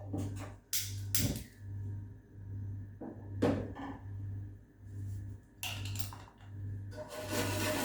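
A utensil stirring a lemon custard mixture in a saucepan, scraping and clinking against the pan, with a low hum that swells and fades at an even pace about one and a half times a second.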